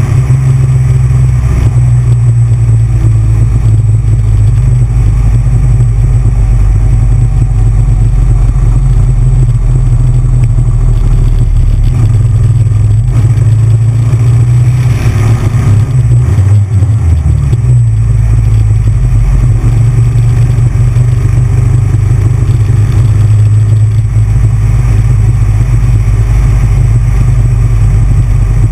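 Big Bear Choppers motorcycle engine running loud and steady at road speed, with a brief dip and change in pitch a little past halfway.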